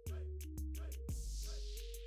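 Background music with a steady beat: regular hi-hat ticks over a bass line and a stepping synth melody, with a swoosh in the second half.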